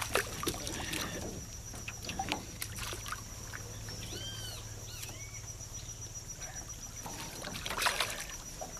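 A hooked fish thrashing and splashing at the water's surface, in scattered sudden splashes with a louder burst of splashing near the end.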